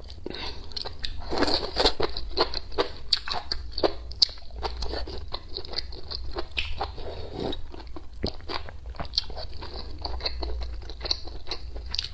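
Close-miked eating sounds: a person biting and chewing food, with a dense run of short crunches and clicks.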